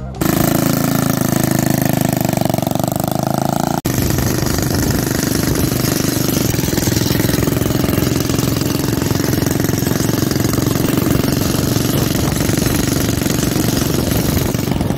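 Vintage motorcycle engine running steadily; the sound breaks off sharply for an instant about four seconds in, then carries on.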